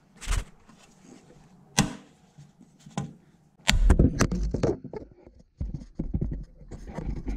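Hex key clicking and scraping on the screws of a motorcycle skid plate as a tight screw is worked loose: sharp single clicks about a third of a second in, near two seconds and at three seconds. Then a second of rustling and knocking, and scattered small clicks.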